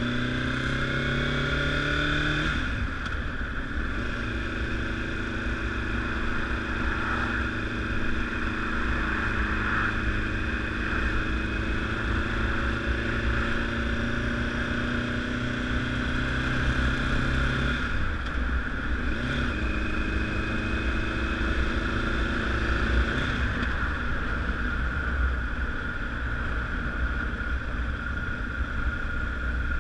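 Honda CBR1000RR sportbike's inline-four engine running under way: it revs up for the first couple of seconds, drops in pitch as it shifts up, then holds a steady note, with changes in engine speed about 18 and 23 seconds in. A steady low rumble runs underneath.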